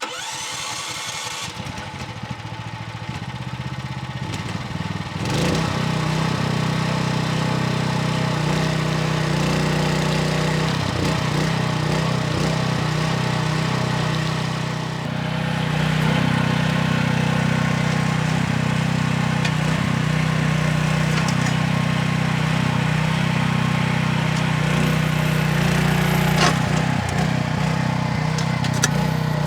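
Ducar 0.8-ton mini excavator's 9.5-horsepower engine starting up and running steadily with a low hum, rising over the first few seconds as it comes up to speed. The sound dips briefly about fifteen seconds in and then runs a little louder.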